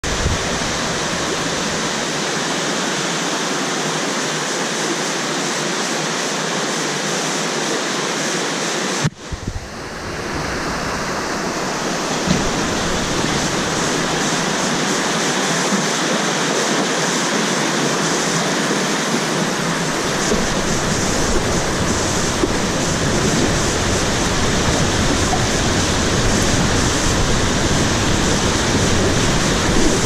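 Steady rushing of whitewater rapids heard from the raft, with a brief dip in level about nine seconds in. After about twenty seconds the sound grows a little louder and deeper as the raft moves into the current.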